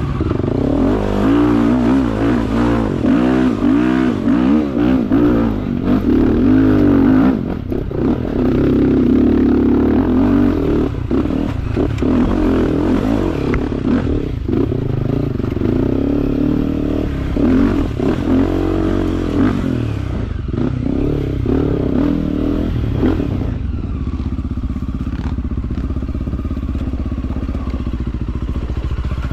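Off-road dirt bike engine being ridden hard, its pitch rising and falling with the throttle for the first twenty seconds or so, then running lower and steadier. Occasional knocks are heard over it.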